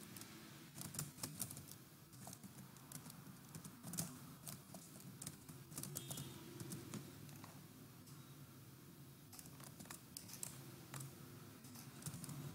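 Faint, irregular keystrokes on a computer keyboard as a line of code is typed, with a short lull a little past the middle.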